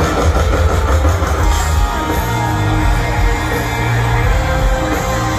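A rock band playing live through a large outdoor PA, with electric guitar and heavy bass and a voice singing over it, heard from far back on the lawn.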